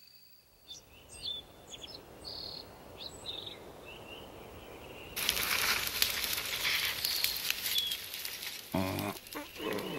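Small birds chirping in short high calls, a morning ambience. About halfway through, a steady high hiss joins them, and a brief voice sound comes near the end.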